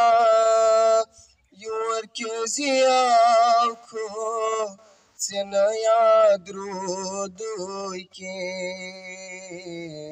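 A young man singing a nazm into a handheld microphone, in long wavering held notes with brief pauses for breath between phrases.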